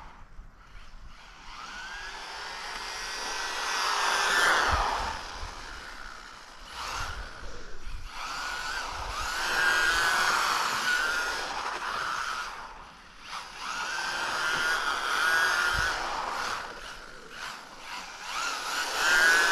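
Whine of an MJX Hyper Go 1/14-scale rally RC car's electric motor on a 2S LiPo, rising and falling in pitch as the car speeds up and slows. It swells and fades about four times over a steady hiss.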